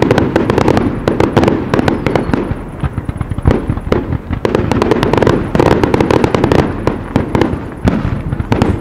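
Fireworks display: a dense, rapid string of bangs and crackling reports from aerial pyrotechnics, easing off briefly a few seconds in, punctuated by one sharp loud crack, then picking up again.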